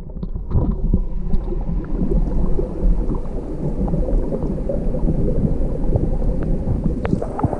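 Muffled underwater rumble of a fast creek's current heard through a submerged action camera, the treble cut off and only a low churning left, with scattered small clicks and knocks.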